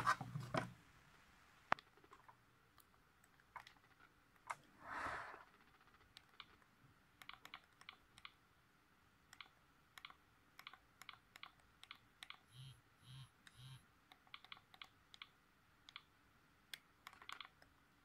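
Faint, repeated clicks of a Sony Ericsson K530i's keypad keys and navigation joystick being pressed while scrolling through the phone's menus. There is a brief rustle about five seconds in and three short sounds in quick succession about two-thirds of the way through.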